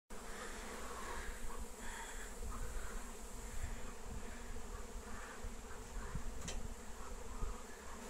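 A swarm of honey bees buzzing: a steady hum of many bees in flight.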